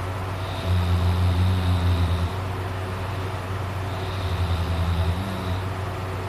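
A sleeping person snoring: two low snores a few seconds apart, the first about a second and a half long, the second shorter with a fluttering rattle. A steady low hum runs underneath.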